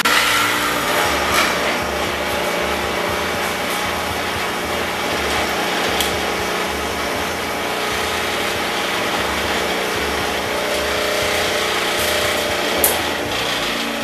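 Foley Belsaw Sharpall grinding machine running steadily with a constant motor hum, with brighter grinding of a steel chipper blade right at the start. A single sharp click about 13 seconds in.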